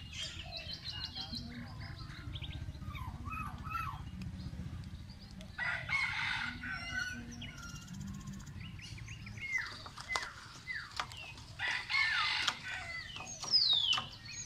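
Several birds calling over a low steady rumble: quick chirps early on, two louder harsh calls partway through, and short falling whistles near the end.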